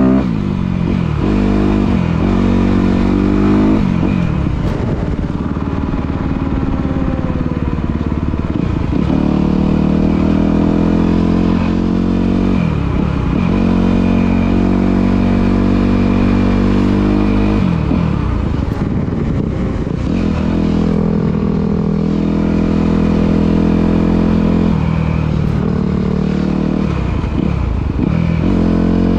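Dirt bike engine running hard at road speed. Its pitch dips and climbs back several times, as at gear changes or throttle lifts, with long stretches held steady in between.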